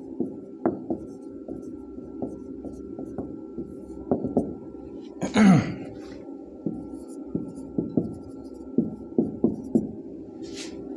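Marker pen writing on a whiteboard: short scratchy strokes and taps at an uneven pace, over a steady low room hum, with one louder falling squeak about halfway through.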